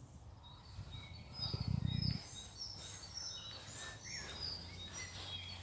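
Small birds chirping in quick, short high notes over outdoor background noise, with a brief low rumble about a second and a half in.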